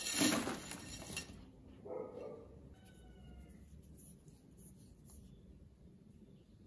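Fried sweet potato sticks poured from a glass bowl onto a banana leaf, a rustling clatter lasting about a second. A short animal cry follows about two seconds in, then a few faint chirps.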